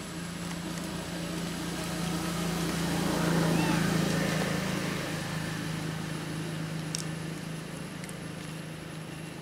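A motor vehicle passing nearby: a steady engine hum with road noise that swells to its loudest about three and a half seconds in, then fades away.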